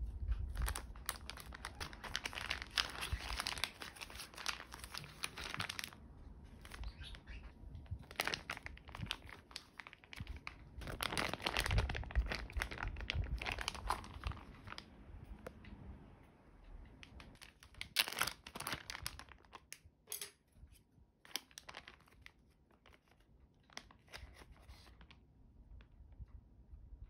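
A plastic zip-top storage bag crinkling and rustling as hands press the air out of it, seal it and knead the cucumber slices and yogurt-miso marinade inside. The crinkling comes in bursts, heaviest over the first fifteen seconds and again around eighteen seconds, and fainter near the end.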